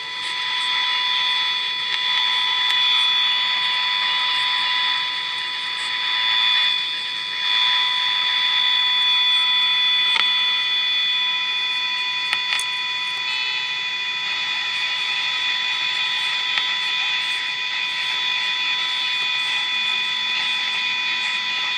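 Emerson five-tube AM radio's speaker sounding a steady test tone from a signal generator over hiss while its IF stage is being aligned; the tone holds a fixed pitch with overtones, its loudness swelling and dipping a little.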